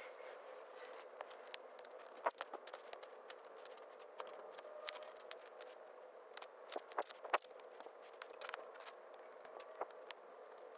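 Small plastic building bricks being handled and snapped together: irregular light clicks and taps, with a few sharper snaps about two seconds in and again around seven seconds in as pieces are pressed on.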